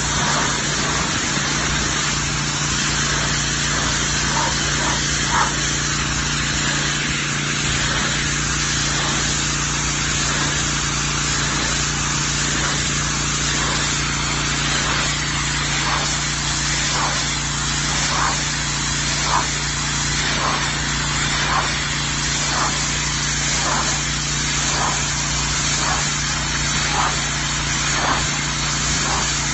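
Pressure washer spraying a concrete sidewalk: a steady hiss of high-pressure water over the constant hum of the machine's engine, with a regular swish about once a second in the second half.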